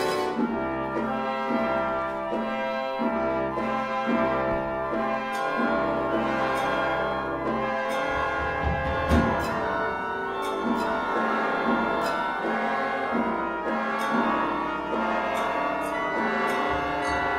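Orchestra playing microtonal contemporary music: brass, trumpets and trombones among them, holding and shifting dense chords over low sustained notes, with short percussion strikes scattered through, more often in the second half.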